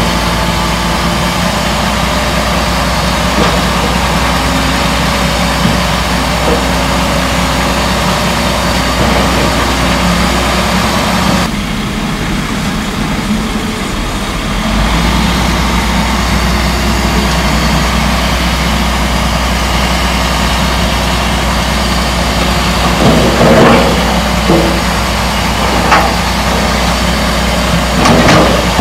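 Komatsu D58E crawler dozer's diesel engine running steadily under work. It softens for a few seconds about halfway through, and a few short clanks come near the end.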